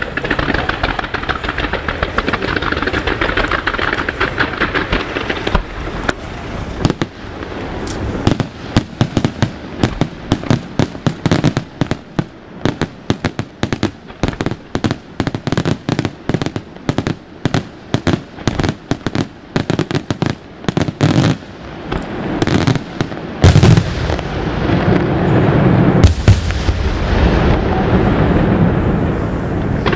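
Fireworks display: a dense crackle and hiss at first, then a long run of sharp bangs several a second, then heavy booms and rumbling shell bursts for the last several seconds.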